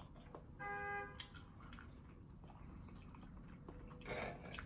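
Quiet chewing and mouth sounds of someone eating baked macaroni and cheese, with small wet clicks. About half a second in, a short steady tone sounds briefly. Near the end comes a brief noisy rush, like a breath.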